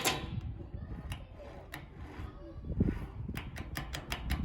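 Scattered light clicks and knocks from handling an electric sander, with a quick run of ticking near the end.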